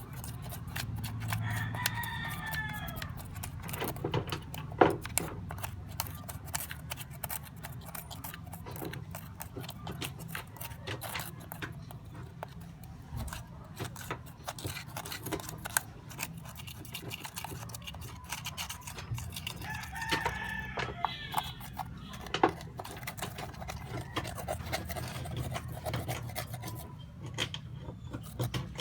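A rooster crowing twice, once near the start and again about twenty seconds later, each crow about a second and a half long. Between them, a steady low hum and many small clicks and scrapes.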